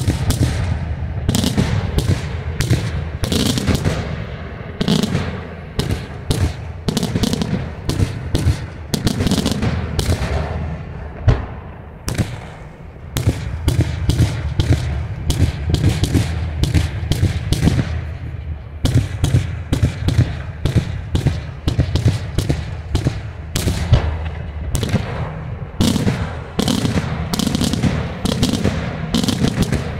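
Daytime fireworks display: aerial shells bursting overhead in a rapid, continuous barrage of bangs over a low rumble of echoing booms, easing briefly about eleven seconds in before picking up again.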